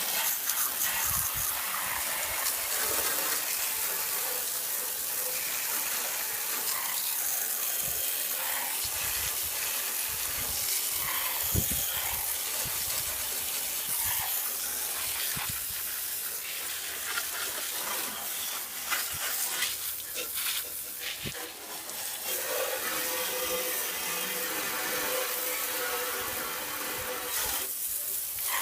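Water spraying from a hose onto a dirty window air conditioner, rinsing the dirt from its coils: a steady hiss with a few brief knocks.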